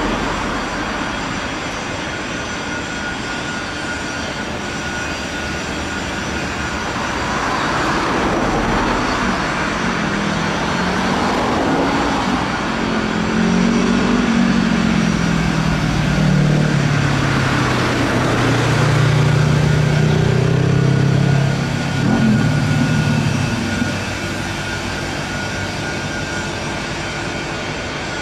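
Steady background noise of traffic and machinery with a faint steady whine. Through the middle an engine passes: its pitch rises, then sinks, and it is loudest about two-thirds of the way through before fading.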